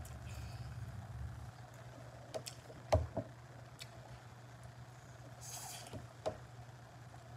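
Close-up mouth sounds of eating jerk chicken: a few scattered smacks and clicks of chewing, the loudest about three seconds in, over a steady low hum.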